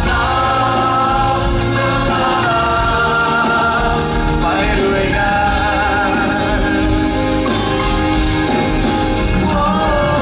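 Live pop song: a male singer with a band of electric guitars, with the voice wavering in vibrato over a steady full accompaniment.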